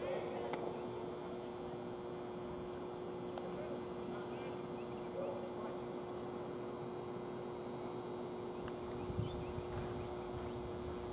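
Steady electrical hum over a constant background hiss, with a few faint brief sounds and a soft thump about nine seconds in.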